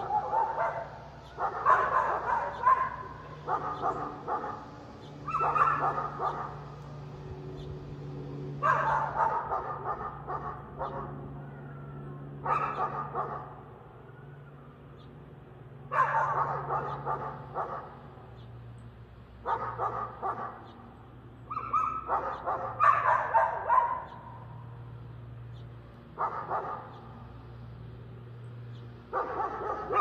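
A dog barking in repeated bouts of several barks every few seconds, over a steady low motor hum.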